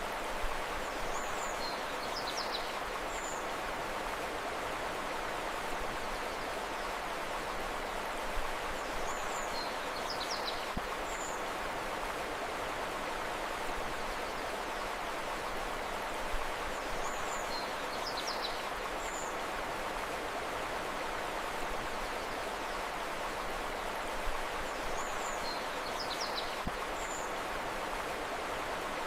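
Steady rushing of a flowing river, with a brief cluster of bird chirps that recurs at even intervals of about eight seconds.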